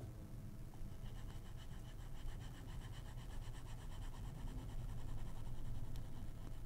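Stylus scribbling quickly back and forth on a graphics tablet, a faint rapid scratching that starts about a second in, over a low steady hum.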